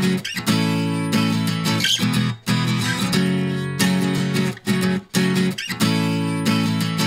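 Background music: strummed guitar chords in a steady rhythm.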